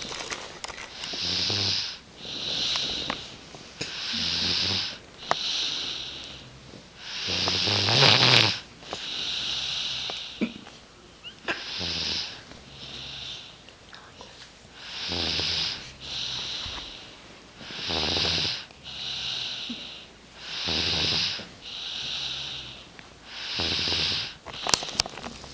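Two people sleeping and snoring in turn. One snore follows the other about a second later, and the pair repeats roughly every three seconds. One snore around a third of the way in is louder than the rest.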